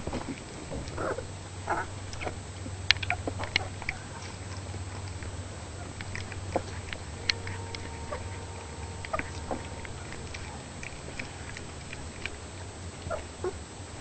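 Three-week-old puppies playing: a couple of short squeaks and whines in the first two seconds, then scattered small clicks and taps, over a steady low hum.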